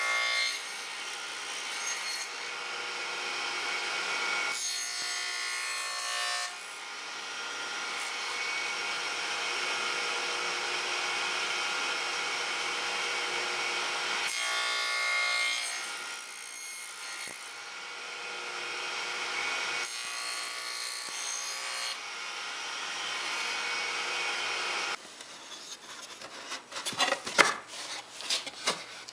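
Radial arm saw with a two-blade dado stack running and being pulled through plywood drawer parts in several passes to cut lock rabbets, its whine and cutting noise rising and falling as each pass starts and ends. About 25 seconds in the saw stops and a few sharp wooden knocks and clicks follow as drawer pieces are handled and fitted together.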